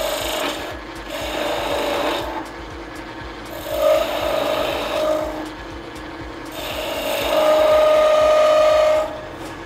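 A turning chisel cuts the end grain of a spinning wood blank on a lathe, shaping a chamfer: a scraping, hissing cut with a steady tone in it. It swells in about four passes, the last the longest and loudest near the end.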